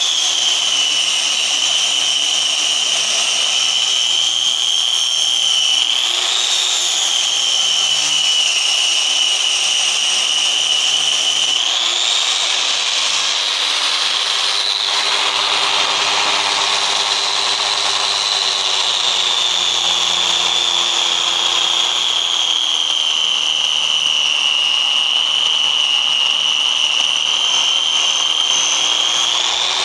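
Electric angle grinder with a sanding disc running under load against the edge of a porcelain tile, smoothing a 45-degree bevel cut. It is a steady high motor whine. The pitch lifts briefly a couple of times, runs higher through the middle, and then settles lower.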